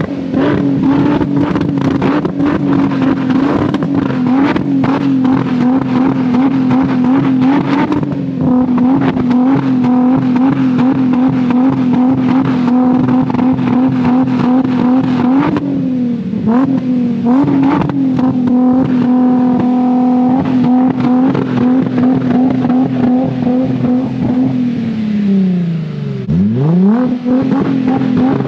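Car engine revved hard and held at high rpm through a 3-inch catback exhaust, its pitch steady with a slight wobble. It dips and recovers briefly about halfway through, then drops sharply near the end and climbs straight back up.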